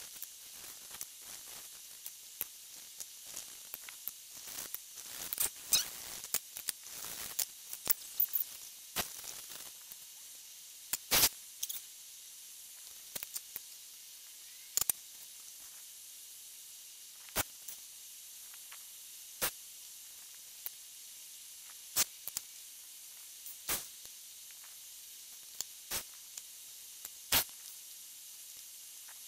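Watercolour brush swishing and dabbing on paper over a steady faint hiss, busiest in the first ten seconds, then scattered sharp taps and clicks every couple of seconds.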